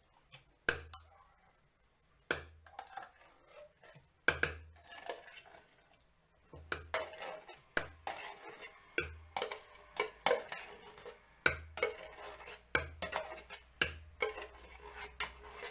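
Metal spoon scraping and knocking inside a large tin can of tomato paste while scooping the paste out into a pot: a sharp knock about every second, each with a dull thud, and scraping in between.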